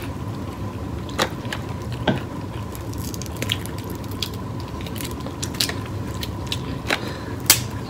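Snow crab legs being cracked and pulled apart by hand, with chewing. Short sharp cracks and clicks are scattered throughout, the loudest about a second in, about two seconds in and near the end.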